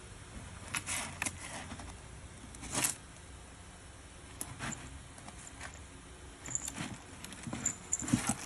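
Kitten scratching and digging in cat litter inside a hooded plastic litter box: irregular short scratchy rustles and crackles of the litter, with a louder cluster near the end.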